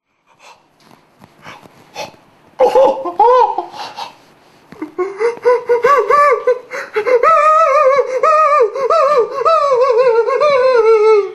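A person laughing hard and loudly in high-pitched, wavering peals, starting about two and a half seconds in and running almost without a break through the second half. Faint knocks and handling noise come before it.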